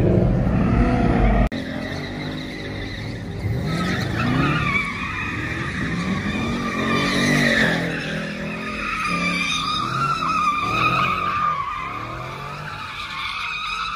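Cars spinning donuts: tires squealing in long, steady screeches while the engines rev up and down over and over.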